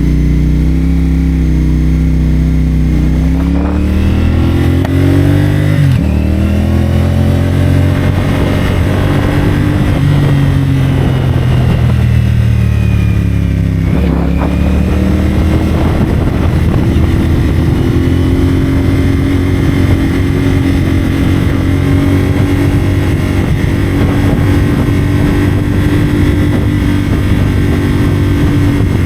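CFMoto 450SR's parallel-twin engine through a Yoshimura AT2 slip-on exhaust, under way. The engine note rises as it accelerates, drops sharply at an upshift about six seconds in and climbs again. It falls away around the middle as the throttle eases, pulls up once more, and then holds a steady cruising note for the second half.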